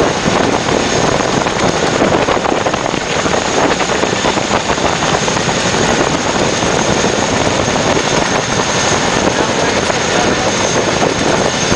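CH-47 Chinook helicopters running on the ground: a loud, steady rush of rotor and turbine noise with a thin high whine above it.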